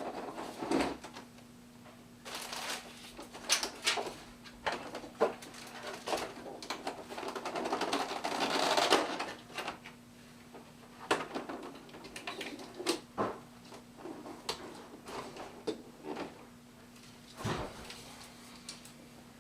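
Toy packaging being opened and handled: scattered clicks and light knocks, with about two seconds of rustling partway through.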